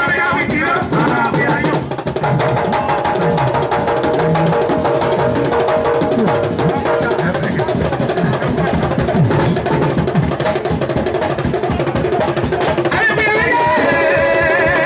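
Live aloukou music: a dense, driving rhythm of drums and percussion with held melodic notes over it. Wavering voices come in near the end, sounding like singing.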